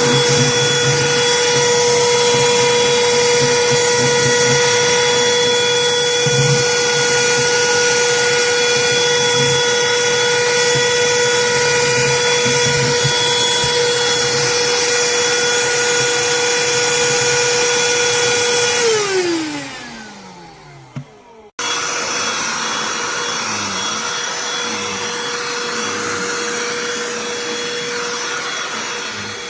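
Cordless handheld vacuum running with a steady high whine, switched off about 19 seconds in so the motor winds down in falling pitch, then switched on again about two seconds later and running steadily, a little quieter.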